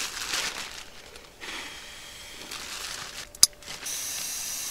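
Nylon pump sack crinkling as it is handled and squeezed, then a steady hiss of air being pushed through it into an inflatable sleeping mat, with one sharp click a little past three seconds in.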